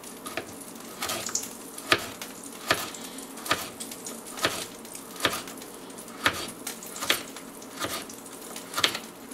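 A kitchen knife slicing a raw carrot into thin rounds, each cut ending in a sharp knock of the blade on a wooden cutting board, about one slice every second at an even pace, over a faint steady hiss.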